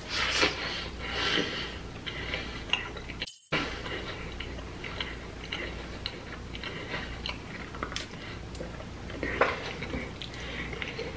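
Close-miked chewing of a cheese-stuffed deep-dish pizza: mouth sounds with many small clicks, a brief dropout to silence about three seconds in, and a louder burst of chewing near the end.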